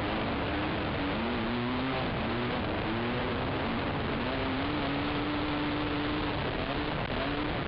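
Racing ATV engine heard from an onboard camera, its note rising in short repeated surges as the throttle is worked, then held steady for about two seconds past the middle before surging again, over a constant rush of wind and trail noise.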